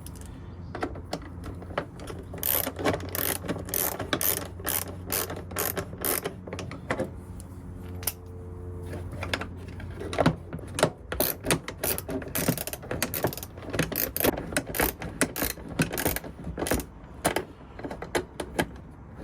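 Ratchet wrench clicking in quick runs of strokes as mounting bolts are run in and tightened, over a low steady hum.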